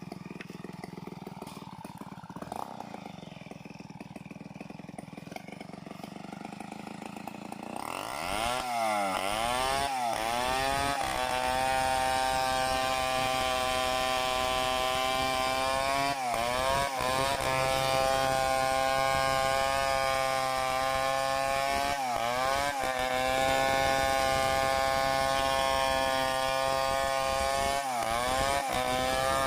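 Two-stroke chainsaw running at low speed, then revved up to full throttle about eight seconds in and held there. Its pitch sags briefly and recovers about every six seconds.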